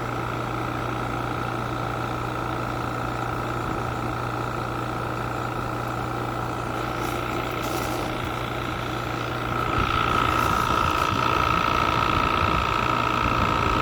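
Crane's engine running steadily with a whine, growing louder about ten seconds in as it works harder.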